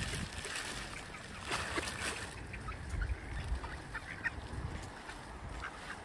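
Mallard ducks quacking in short, scattered calls while they feed close by.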